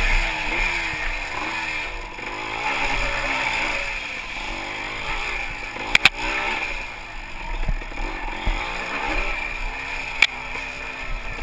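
Yamaha IT200 single-cylinder two-stroke dirt bike engine under way on a trail, its pitch rising and falling as the throttle opens and closes. Two sharp knocks stand out, about six and ten seconds in.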